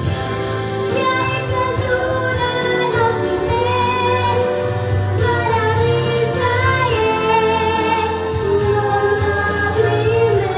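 A young girl singing a Romanian song into a microphone in long, held phrases over instrumental accompaniment.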